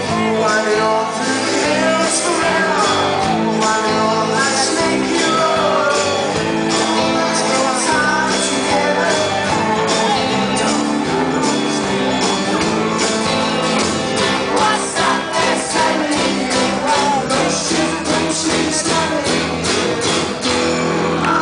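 Loud live rock band music in a hall, heard from the audience: acoustic and electric guitars, bass guitar and drums playing together.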